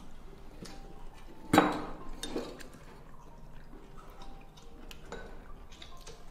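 Metal spoon clinking and scraping against a stainless steel bowl: one sharp clink about a second and a half in, then a few lighter taps.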